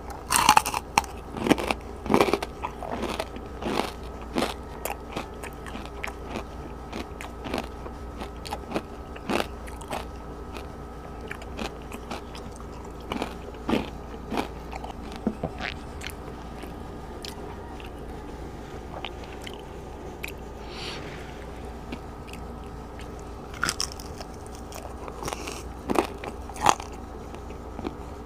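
A person biting into and chewing crispy food, with sharp crunches that come thick and fast in the first few seconds, thin out in the middle, and pick up again near the end.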